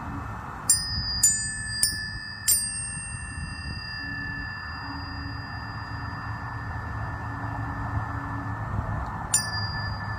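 Tuning forks struck four times in quick succession and once more near the end, each a sharp tap followed by a high, pure ring that lingers for several seconds.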